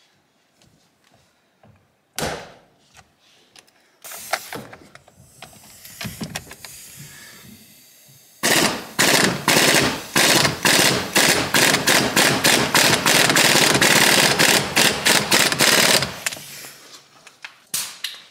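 Impact wrench hammering on the steering-wheel centre bolt, a T50 Torx, of a 2022 Camaro ZL1, working the tight bolt loose. It comes in a couple of short bursts first, then a loud, sustained rattling run of about seven seconds starting about halfway through.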